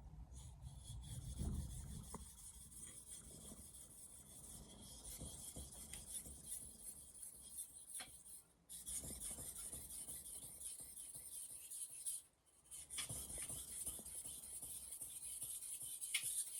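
Japanese kitchen knife blade stroked back and forth on a wet whetstone, a steady scraping hiss that breaks off briefly twice, at about eight and about twelve seconds in.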